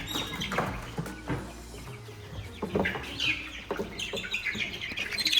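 Month-old chicks giving short, high, falling chirps and squawks while being handled, with scattered knocks and rustling.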